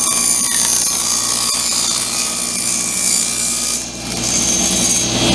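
Table saw running and cutting through a thin plywood panel, a steady whine with a brief dip in level about four seconds in.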